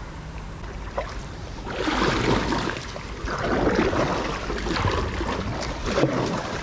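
Kayak paddle strokes splashing and churning the creek water. A run of strokes starts about two seconds in, roughly one a second.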